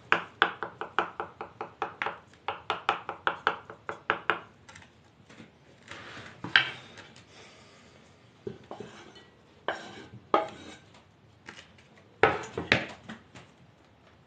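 Kitchen knife chopping food on a wooden cutting board, about three quick strokes a second, for the first four seconds or so; after that only scattered single knocks and taps.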